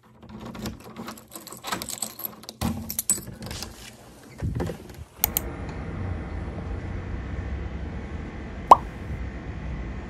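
Light clicks, clinks and taps of small hard objects being handled, then, about halfway, an abrupt change to a steady low rumble with a faint hum. A single short rising tone sounds near the end.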